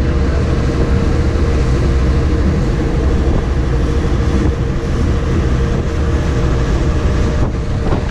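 Lake passenger ferry under way: its engine gives a steady low drone, mixed with water rushing past the hull.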